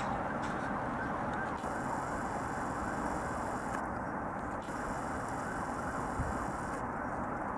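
Steady distant road traffic, an even rumble that does not rise or fall.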